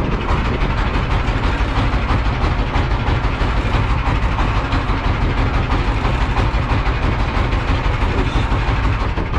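A boat's engine running steadily, a low rumble with no change in pace.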